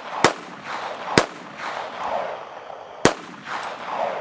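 Three pistol shots from a .380 ACP handgun, the first two about a second apart and the third about two seconds later, each trailing off in an echo.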